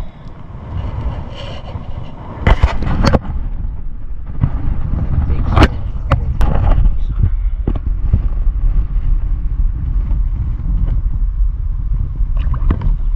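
Wind buffeting the microphone in a steady low rumble, with several sharp knocks and bumps from a caught smallmouth bass being handled in a plastic kayak, the first about two and a half seconds in and more through the middle and near the end.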